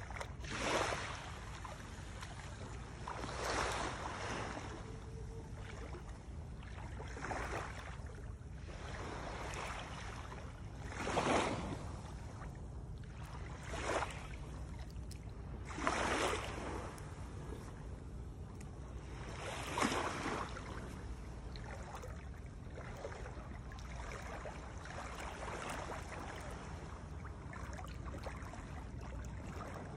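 Shallow seawater sloshing and splashing in swishes every few seconds, over a steady low rumble.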